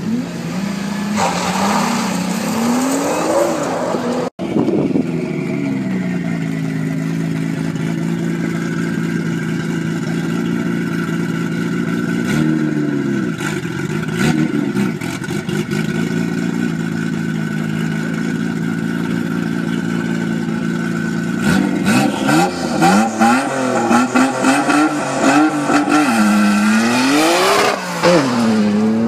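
Nissan GT-R engine revving up at a drag start line for the first few seconds, then a Nissan Skyline R32's turbocharged engine idling steadily. From about two-thirds of the way in it is revved again and again with sharp crackles, and near the end the pitch climbs steeply as it launches.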